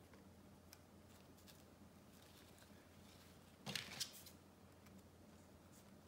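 Faint rustling of fabric and ribbon being handled, with a brief louder burst of rustling a little past halfway.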